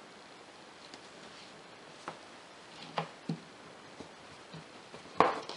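Faint handling sounds of silk-ribbon embroidery: a few light taps and clicks as satin ribbon is worked through fabric in an embroidery frame, with one sharper click near the end.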